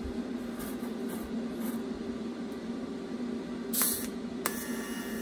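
TIG welding torch striking its arc about four seconds in, with a short sharp hiss, then settling into a steady arc hiss with a thin high buzz. A steady low hum runs underneath throughout.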